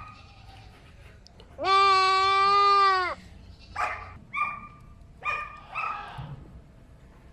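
A goat bleating: one long, loud, steady cry lasting about a second and a half, followed by several short calls. It is a male goat being castrated by a vet.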